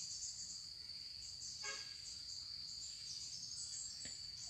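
Steady high-pitched insect chorus, with a brief faint call about one and a half seconds in and a light click near the end.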